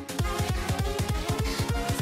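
Electronic background music: rapid bass hits, each dropping in pitch, under a tone that slowly rises.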